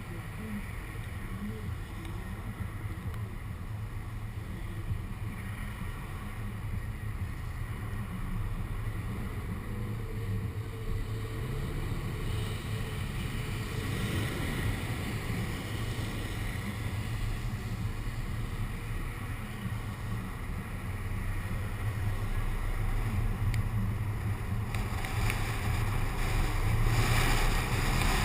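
Car on the move: a steady low rumble of engine and tyres with wind noise, picked up by a camera suction-cupped to the car's window. It grows gradually louder, with more hiss in the last few seconds.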